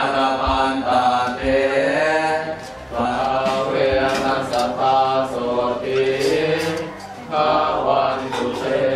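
Buddhist monks chanting a Pali text in a steady, drawn-out monotone, with two short pauses, about three and seven seconds in.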